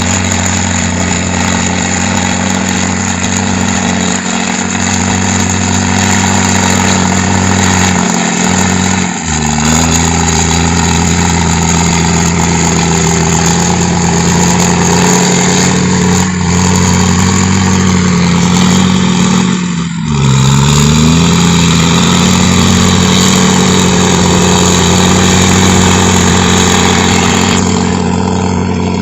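Komatsu heavy machine's diesel engine running and rumbling steadily. Its pitch steps up about nine seconds in, then briefly dips and climbs back about twenty seconds in.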